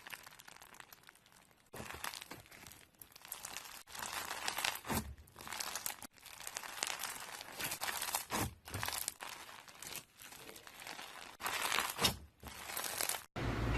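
Slime being squeezed and poked by hand, giving crinkly, crackling sounds in irregular bursts, broken by a few short gaps.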